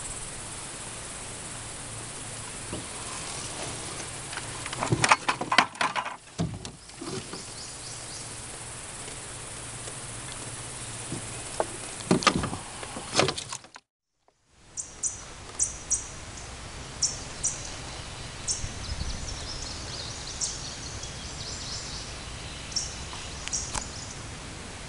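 Insects, likely crickets, buzzing steadily with loud knocks and clatter around five seconds in and again around twelve seconds in as the landed catfish is handled in the landing net in the boat. After a brief dropout, birds give scattered short high chirps.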